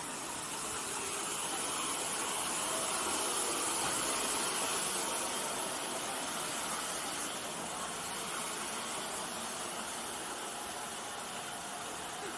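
LMS Black Five steam locomotives hissing steam at the platform: a steady hiss that swells a couple of seconds in and then eases back.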